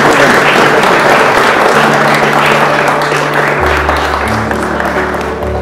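Wedding guests applauding, the clapping thinning out toward the end, with background music of low held notes coming in over it and growing deeper after about three and a half seconds.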